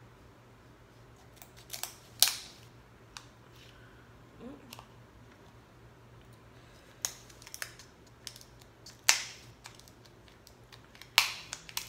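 Kitchen scissors cutting through the shell of a cooked king crab leg: irregular sharp snips and cracks of shell, the loudest about 2, 7, 9 and 11 seconds in.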